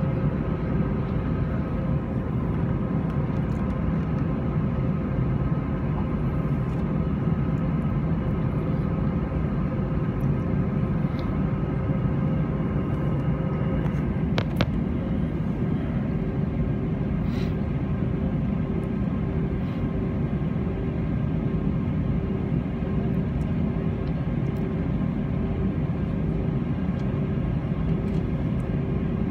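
Steady cabin noise inside an Airbus A321 on the ground: a low rumble with a hum of several steady tones. A single click about halfway through.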